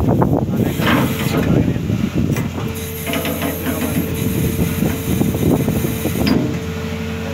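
Anchor windlass on a ship's deck: irregular mechanical clatter, then about two and a half seconds in its drive starts a steady hum with a hiss over it.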